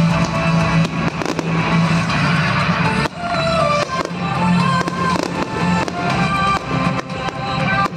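Fireworks display: shells bursting in repeated bangs, heard over loud music.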